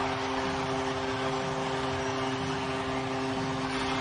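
Arena goal horn sounding in a steady held chord over a cheering home crowd, the celebration of a home-team goal.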